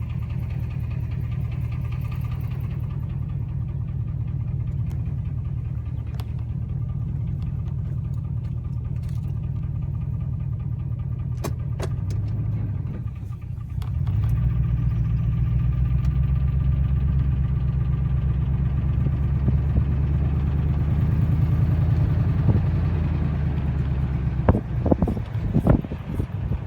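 Car engine running with a rapid, even knocking pulse, the kind of noise that has to be told apart as lifter tick or rod knock. About halfway through the sound dips for a moment, then comes back louder. Near the end a few sharp knocks or clatters sound over it.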